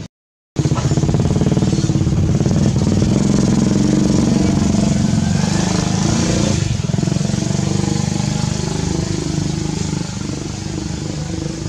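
Motorcycle engine running steadily, its exhaust pulses even and loud. It starts abruptly about half a second in, after a moment of dead silence.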